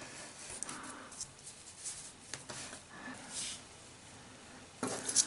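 Light scratching and scraping with scattered small clicks as a tool picks at a SIM card's plastic layers, with a louder flurry of clicks and scrapes near the end.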